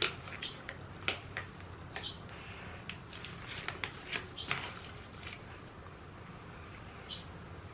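Mouth sounds of someone eating fudge: a handful of scattered short, soft lip smacks and clicks while chewing, spaced irregularly.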